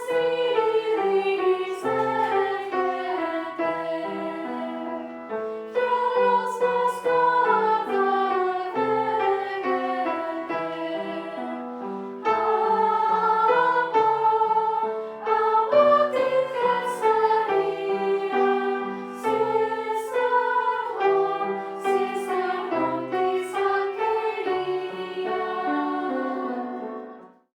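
Music: voices singing a melody over instrumental accompaniment with a steady run of bass notes, fading out at the very end.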